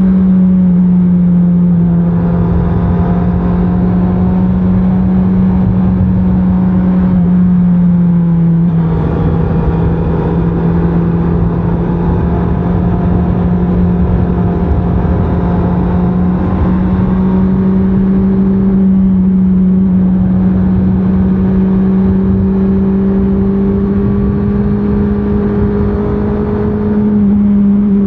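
2024 Honda CBR650R's inline-four engine running steadily on its stock exhaust while riding, its note dipping a little about a third of the way in, rising slowly through the second half and stepping up near the end as the revs change. A constant rushing noise runs underneath.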